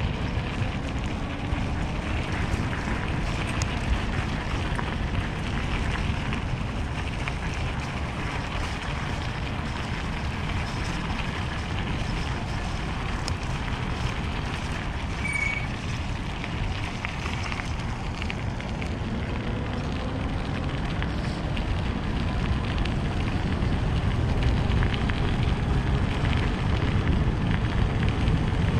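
Wind rushing over the microphone of a moving e-bike, with its tyres crackling over a gravel road. A faint whine rises and falls now and then, and there is one brief high chirp about halfway through.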